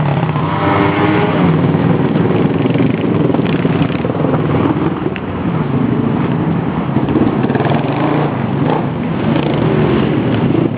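Dirt bike engine running hard while riding, its pitch rising and falling as the throttle is worked.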